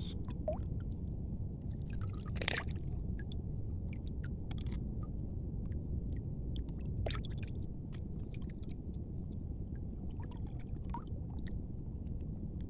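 Shallow water sloshing, with scattered small splashes and a sharper splash about two and a half seconds in, over a steady low rumble.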